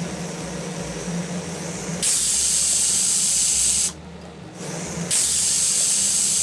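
Aluminium United pressure cooker whistling twice as steam blasts from its weight valve, each loud hissing whistle lasting about two seconds, over a steady softer hiss. The second whistle marks the recipe's end point of two whistles, when the rice is cooked.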